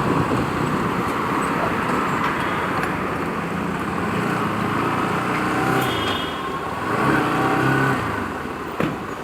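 Motorcycle riding along a road: steady engine and road noise with traffic around it, getting quieter in the last second or so.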